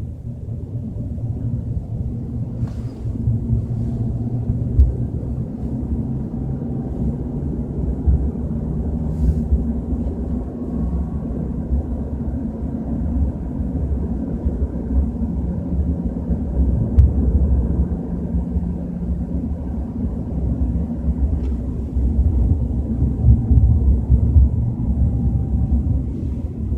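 BMW 320i driving at low speed, a loud, steady low rumble running under the tyre and engine noise. This is the strange rumble the owner hears at 30–40 km/h, its cause not yet known.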